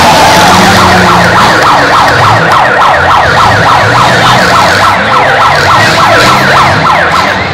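Electronic siren in a fast yelp, rising and falling about four times a second, starting about a second and a half in and easing off near the end. Underneath, the engines of the demolition derby cars run in the arena.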